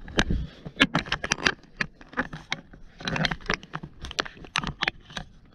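Irregular knocks, taps and scrapes of gear and feet being handled and shifted in a small fishing boat, about twenty short sharp strikes at uneven spacing.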